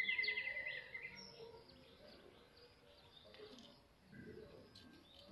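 A fast, high-pitched chirping trill that is loudest in the first second, followed by scattered fainter chirps.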